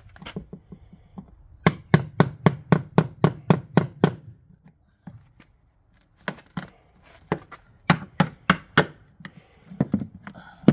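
Small hammer striking a thin chisel cutting into the mahogany hull planking of a 1954 Chris Craft, to take out a rotted board: a quick run of sharp knocks about five a second, a pause of about two seconds, then a slower run of knocks.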